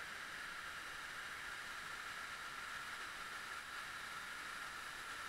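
Steady rush of an underground waterfall and flowing water, heard as an even, hiss-like noise with no breaks.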